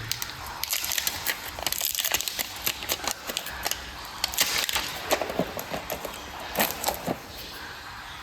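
Irregular clicks and short rustling scrapes as the tools and plug strips of a tire plug repair kit are handled, while the plug insertion tool is made ready.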